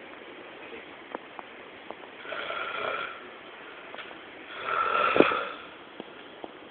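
Snoring: two snores about two seconds apart, the second louder, with a few faint clicks between them.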